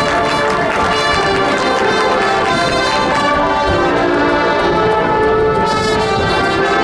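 High school marching band playing, brass section sustaining loud chords over drums and percussion.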